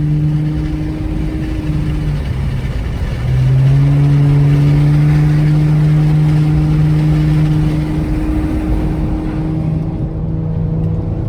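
Infiniti G35's V6 engine with an aftermarket exhaust, pulling under acceleration with a steady drone. The pitch drops at a gear change about three seconds in, then climbs slowly as the car gets louder.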